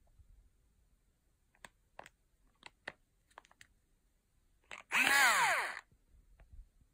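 A few light clicks from handling a small cordless screwdriver, then about five seconds in its motor whirs once for under a second, the pitch falling as it spins down.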